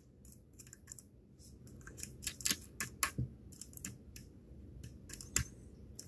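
Steel lock pick scraping and clicking against the pins of a pin-tumbler lock cylinder held under tension, as the pins are probed one by one: a string of small, irregular metallic ticks, with a few louder clicks about two and a half, three and five and a half seconds in.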